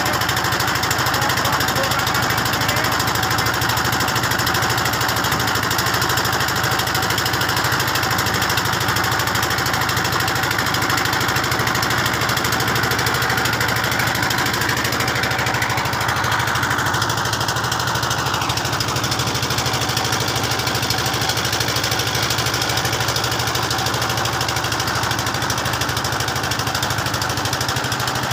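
Engine of a river boat running steadily at a constant speed.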